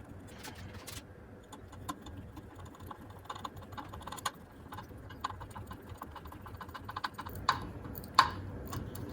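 Irregular light clicks and taps of small hard objects being handled, growing busier partway through, with two louder knocks near the end.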